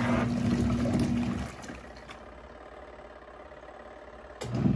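Compact twin-tub washing machine's wash motor humming as it churns a load of clothes in water, cutting out about a second and a half in and starting up again abruptly near the end. The pause and restart are the agitator stopping and going again, which the owner takes for it switching direction.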